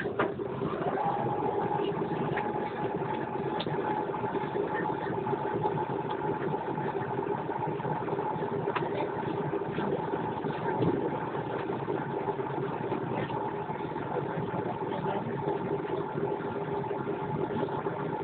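Cabin noise of an Airbus A330-300 taxiing after landing, its Rolls-Royce Trent 700 engines at idle. It is a steady hum, and a steady whine comes in about a second in.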